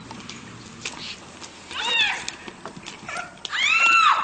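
Dog yelping in pain as a deer stomps it: a shorter high cry about two seconds in, then a longer, louder cry that rises and falls near the end.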